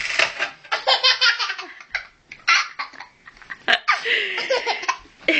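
Baby laughing in a run of short, breathy belly-laugh bursts, with brief pauses for breath.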